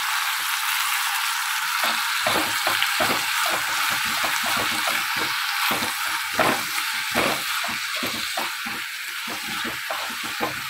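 Elephant foot yam pieces sizzling in oil in a kadai, with a spoon stirring and scraping through them repeatedly from about two seconds in.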